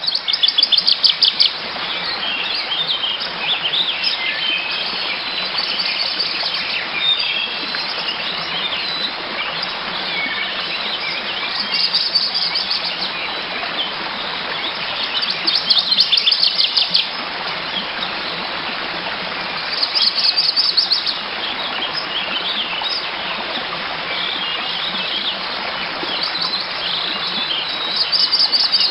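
A dense, steady chorus of chirping animal calls, with a louder rapid trill breaking out every few seconds.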